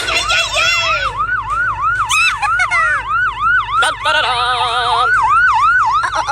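Emergency-vehicle siren in a fast yelp, its pitch rising and falling about three times a second. Other short effects sound over it: a falling whistle about two seconds in and a brief buzzy tone around four to five seconds in.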